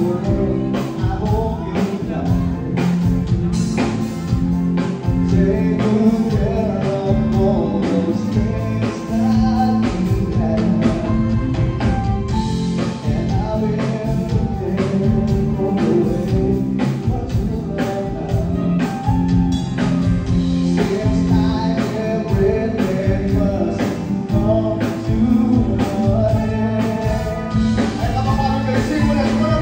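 Live band performing a song: a male singer over electric guitar, electric bass, keyboard and drum kit, with a steady drumbeat and no break.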